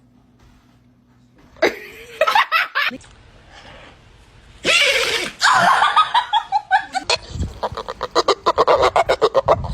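A person laughing hard: scattered bursts about two seconds in, a loud outburst about halfway with a falling run of ha-ha-ha's, then fast, even rapid-fire laughter near the end.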